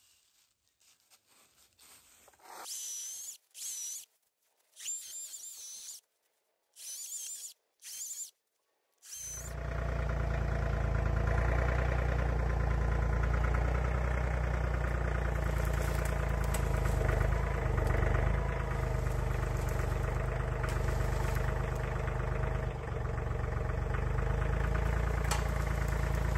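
Short bursts of an Echo battery-powered chainsaw trimming branches, each cut off abruptly. From about nine seconds in, a John Deere 3033R compact tractor's diesel engine runs steadily and loudly under load while its grapple works a fallen tree.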